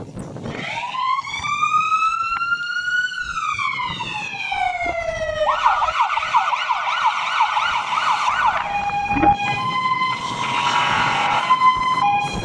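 Fire engine's siren on an emergency run, working through its tones: a slow wail that rises and then falls, then a fast yelp for about three seconds, then an alternating two-note pattern from about nine seconds in.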